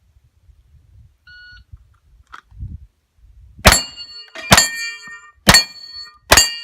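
A USPSA shot timer's short electronic start beep, then about two seconds later four gunshots, roughly one a second, each followed by a brief metallic ring.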